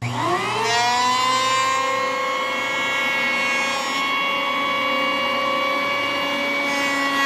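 Electric hand planer starting up, its whine rising in pitch over the first second, then running steadily at full speed as it shaves material off the edge of a pine board.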